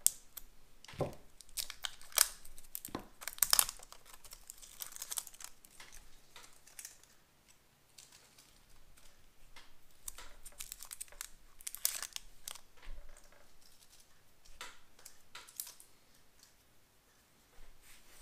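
Small clicks, taps and scrapes of AA batteries being pried and pulled out of a small plastic transistor radio's battery compartment with a folding knife blade and fingers. The sharpest clicks come in the first few seconds and again a little past the middle, with quieter fiddling between.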